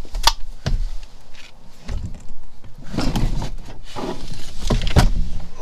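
A man straining and grunting as he hauls a heavy 8D-size AGM battery out of its box by its strap handles, with sharp knocks of the battery against the metal tray and box. The loudest knock comes about five seconds in.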